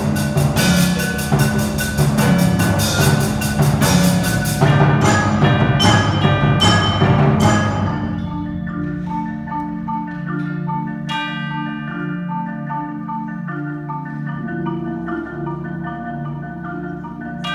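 Percussion ensemble playing music on marimbas and vibraphone over a low bass line. A loud, busy passage of fast mallet strokes gives way about eight seconds in to a softer, sparser passage of ringing notes.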